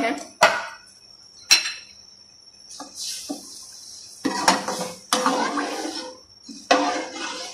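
A metal ladle stirring rice and water in a metal karahi, with two sharp clinks of metal on metal near the start, then three scraping, swishing stirring strokes in the second half.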